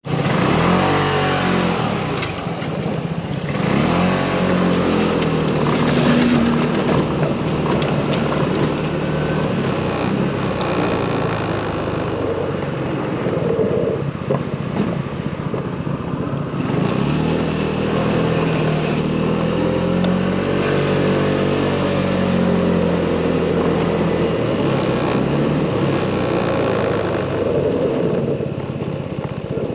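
Motorcycle engine running under way, its pitch rising and falling over several seconds as it accelerates and slows. A steady rush of wind and road noise runs underneath.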